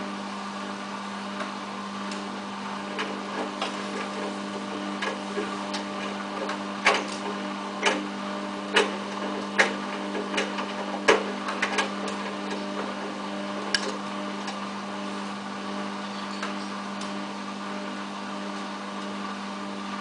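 Samsung WF8804RPA front-loading washing machine turning its drum slowly with a steady hum while it tries to balance a single-item load before the inter spin. Several sharp clicks and knocks come in the middle as the load tumbles in the drum.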